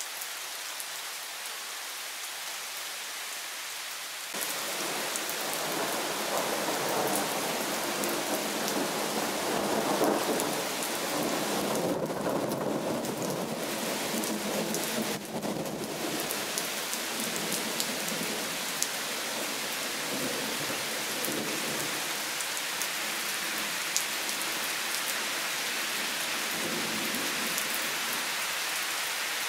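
Steady heavy rain falling on garden foliage and lawn; it becomes louder about four seconds in. A long roll of thunder builds from about five seconds, is loudest around ten seconds in and slowly fades.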